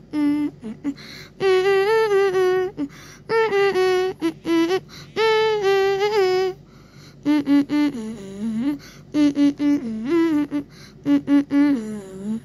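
A high voice humming a wordless tune in long held notes that waver and slide in pitch, with short breaks between phrases.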